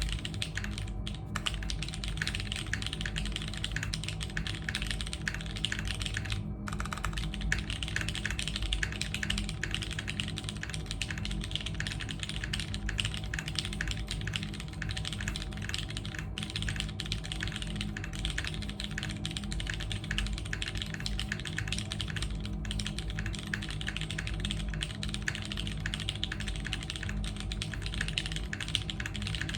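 Continuous fast typing on a custom Keebscape Solaris mechanical keyboard: top-mounted with a polypropylene plate, lubed and filmed MX Brown tactile switches, Knight stabilizers and DCS keycaps, clacking in a dense stream with a brief pause about six seconds in. A steady low hum runs underneath.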